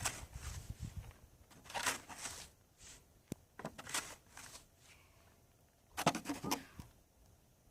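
Snow being shovelled: a handful of separate scrapes and crunches of a shovel in snow, spaced a second or two apart, with one sharp tick a little past three seconds in.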